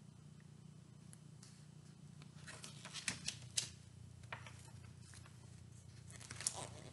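Faint rustling and light flicks of a picture book's pages being flipped through, a few small clicks at a time, over a low steady hum.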